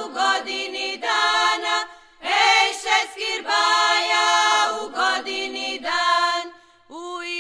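A women's folk singing group singing unaccompanied in harmony, in long held phrases. Short breath pauses come about two seconds in and again near the end.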